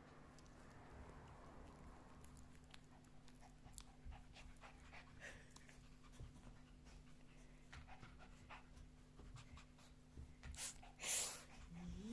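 A dog panting softly, with light clicks and rustles, and two louder breathy huffs near the end.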